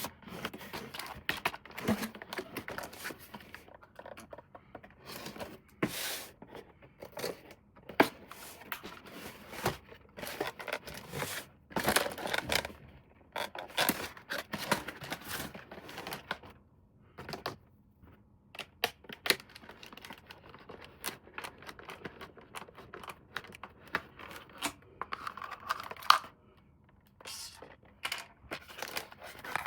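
Unboxing handling noise: packaging being torn and crinkled, with irregular sharp clicks and knocks.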